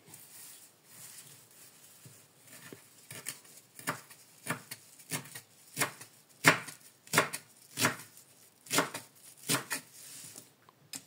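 Kitchen knife chopping fresh parsley leaves on a bamboo cutting board: a run of sharp, uneven strikes, roughly two a second, starting about three seconds in after some quiet rustling of the leaves.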